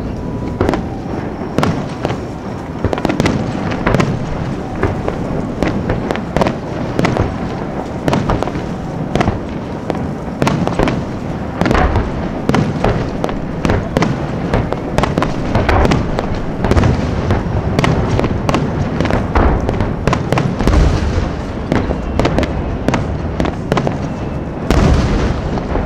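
Fireworks display: a rapid, unbroken barrage of shell bursts, several sharp bangs a second over continuous crackling, with heavier low booms about halfway through, around two-thirds of the way and near the end.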